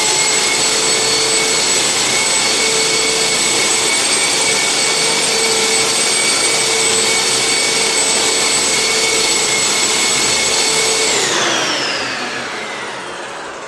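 Floor sanding machine with built-in dust vacuum running steadily with a high motor whine. About 11 seconds in it is switched off and the whine falls in pitch as the motor spins down.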